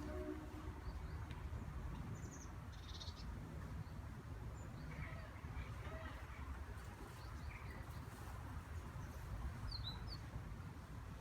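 A few short, scattered bird calls over a steady low rumble. A steady pitched tone with overtones cuts off right at the start.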